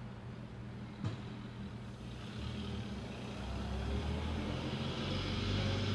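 Vintage car engine running with a low, steady note. There is a single click about a second in, and the engine grows louder from about two seconds on as the car moves off.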